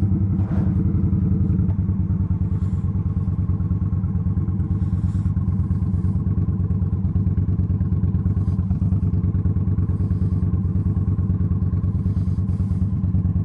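Indian Scout Sixty's V-twin engine idling steadily, its even low pulsing holding at one pitch.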